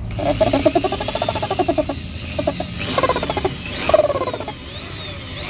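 Corded electric drill boring into the wall of a plastic drum in several goes with short pauses. Its whine rises and falls in pitch as the trigger is worked, and the bit chatters as it bites into the plastic.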